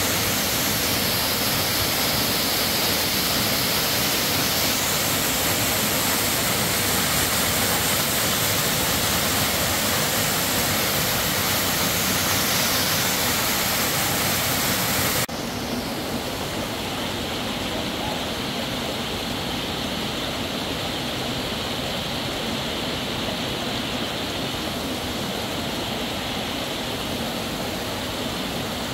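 Steady, loud rushing noise with no clear tone, which turns suddenly duller and a little quieter about halfway through.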